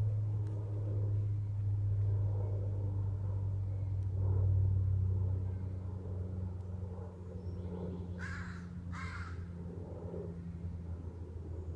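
A steady low hum, with two short harsh calls in quick succession about eight seconds in, each under half a second.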